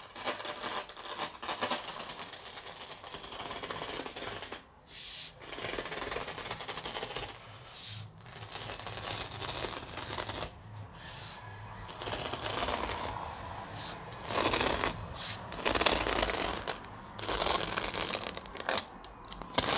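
A blade cutting through the backing of an artificial grass mat along a wooden straight-edge: repeated scratchy slicing strokes broken by short pauses.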